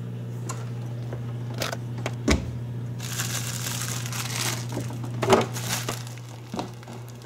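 Crinkling and rustling handling noises with scattered clicks and a dull thump about two seconds in, over a steady low hum.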